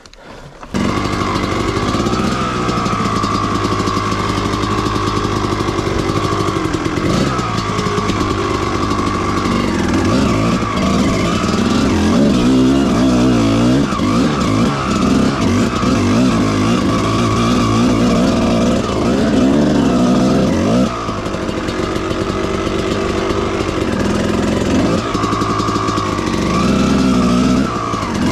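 Two-stroke dirt bike engine, coming in suddenly about a second in, then running and revving up and down with the throttle, with a brief drop in revs about three quarters of the way through.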